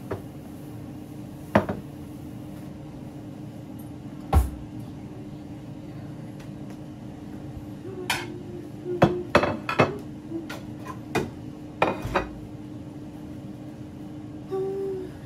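Dishes and cutlery clinking and knocking: two single knocks, then a quick run of clatters in the second half, over a steady hum.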